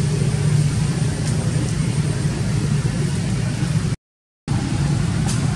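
Steady low engine drone with a hiss over it. It cuts out completely for about half a second, around four seconds in.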